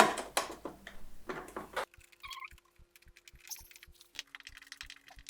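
Small metal parts clinking and clattering as they are handled, for about two seconds, then quiet with a faint steady hum and soft regular ticks.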